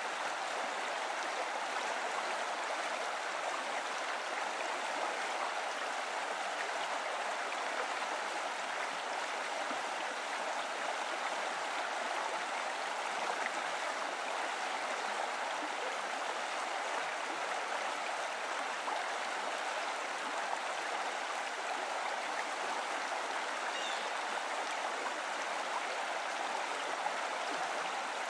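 Steady running water, an even rushing sound like a stream that does not change.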